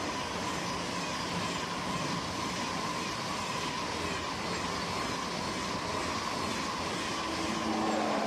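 Eurostar Class 373 high-speed train passing close by at speed. Its wheels on the rails and the air rush make a steady roar, with a faint steady whine running through it.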